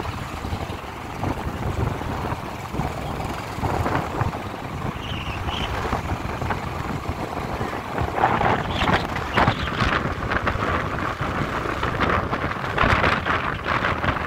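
Wind buffeting the microphone over a low vehicle rumble, with louder gusts of noise about eight seconds in and again near the end.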